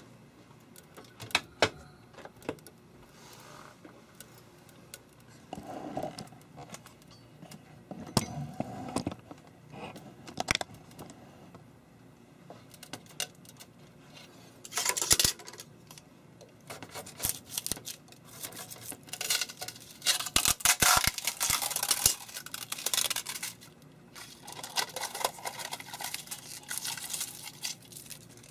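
Handling noises as a large 3D-printed plastic hopper is taken off the printer's glass bed: scattered clicks and knocks, then through the second half longer bouts of crinkling and scraping from clear plastic sheet around the print.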